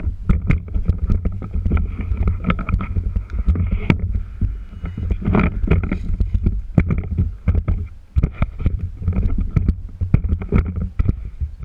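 Heavy wind buffeting and handling noise on an action camera's microphone, with many irregular knocks and rattles. A faint steady whine comes and goes behind it.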